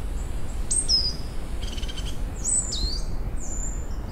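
Small songbirds singing in short high whistled notes, some sliding down in pitch, with a brief buzzy trill, over a steady low rumble.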